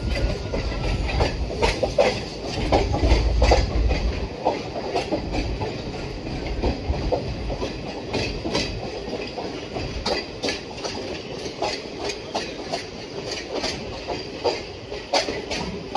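Wheels of a moving passenger express train clattering on the track, with irregular clicks and knocks over a steady running rumble, heard from an open coach window. The low rumble swells for a couple of seconds near the start.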